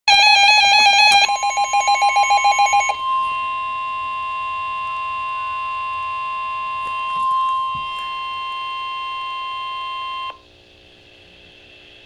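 Weather alert radios going off for a severe thunderstorm warning. There are pulsing electronic alarm beeps for about the first three seconds. Then comes the steady one-pitch NOAA Weather Radio warning alarm tone, held for about seven seconds until it cuts off suddenly about ten seconds in.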